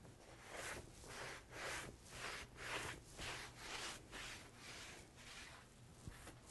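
Cloth rag rubbing over a glazed painted board in quick repeated wiping strokes, about two a second, soft and hissy, thinning out near the end; the rag is working wet dark glaze off the surface.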